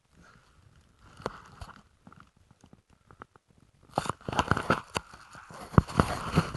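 Handling noise from fingers gripping and rubbing an LG 360 camera right at its microphone: scattered clicks and scrapes that turn into a louder, dense crackle of rubbing and knocks about four seconds in.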